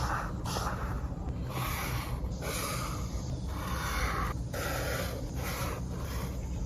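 Paper being rubbed and scratched in a series of short strokes, about one or two a second, as journal-collage materials are handled, over a steady low hum.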